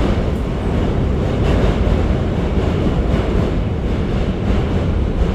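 New York City subway train (D train) running, heard from inside the car: steady, loud noise of the wheels on the rails, heaviest in the low range.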